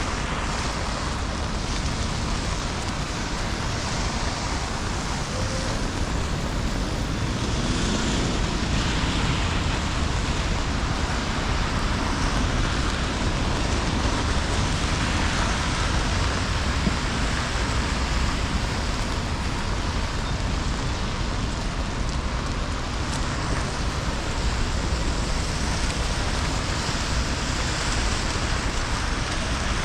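Steady street noise in the rain: traffic running on wet roads with a low rumble, mixed with the hiss of rain.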